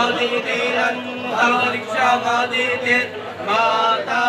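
Male voices chanting Hindu mantras in a steady recitation, holding a reciting tone between phrases.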